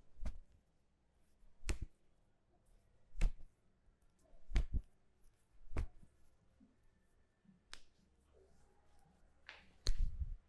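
Sharp hand strikes during an Indian head massage, about seven of them, one every second and a half or so, with one doubled about halfway through.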